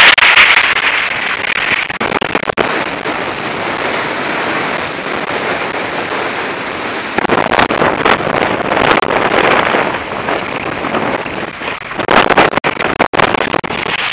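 Strong wind buffeting the microphone, mixed with water rushing and spray splashing off a sailing catamaran's hull. It rises and falls in gusts, loudest at the start and again about twelve seconds in.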